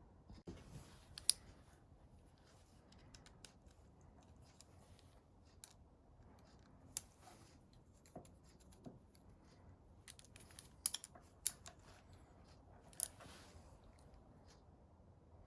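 Scattered light clicks and ticks from small tools and parts being handled at a workbench, with a few sharper clicks at irregular intervals.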